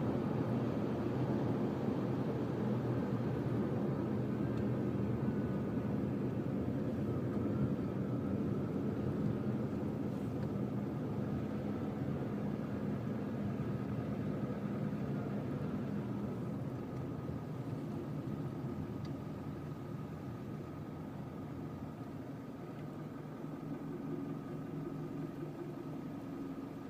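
Cabin noise of a Mitsubishi Delica D:5 clean-diesel minivan on the move: a steady low engine drone over road noise, gradually getting quieter.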